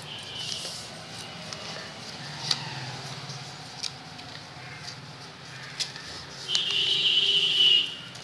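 A sheet of A4 paper being handled and folded by hand, with a few sharp clicks, and a louder scraping sound lasting about a second near the end.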